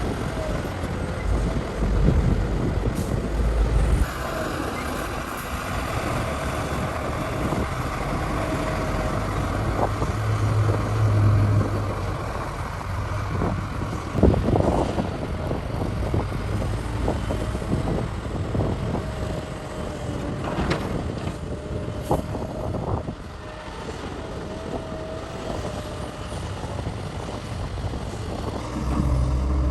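Heavy diesel earthmoving machinery running steadily at a mine: a large hydraulic excavator working while dump trucks wait to be loaded. There is a deep engine rumble with a faint wavering whine and scattered short knocks, the sharpest about halfway through.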